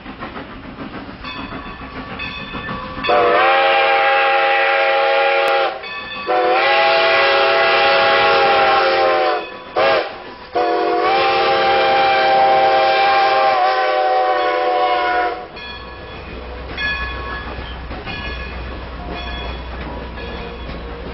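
A steam locomotive's chime whistle sounds three long blasts and one short toot, several pitches at once. The train runs between and after the blasts with a low rumble and a faint clatter.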